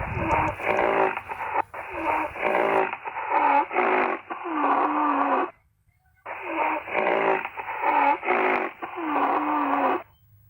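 An animal's hoarse, breathy calls, each under a second long, in two runs of about five with a short break between them. The recording sounds thin and muffled.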